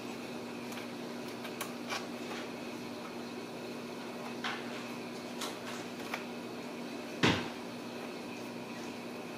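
A kitten's paws and claws tapping and knocking on a hollow plastic toy car, a few light clicks, then one much louder knock about seven seconds in, over a steady low hum.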